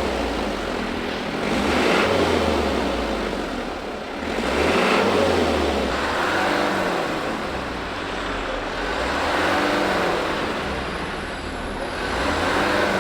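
Motor vehicle engines running, the sound swelling and fading about every two to three seconds as the engine pitch rises and falls.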